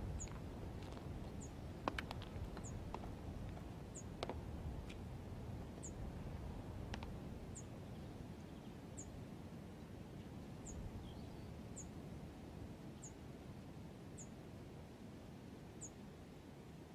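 A small bird's short, high chirp repeating roughly once a second, faint. A few sharp taps in the first few seconds from a walking cane and footsteps on bare rock, over a low background rumble.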